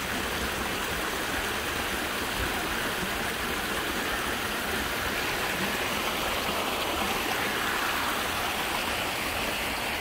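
Shallow rocky mountain stream flowing over boulders in small cascades, a steady, even wash of running water.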